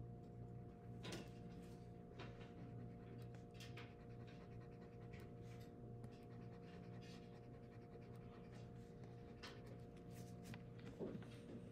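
Near silence: faint, short scratches of a mechanical pencil drawing dashes on paper, at irregular intervals, over a steady low hum.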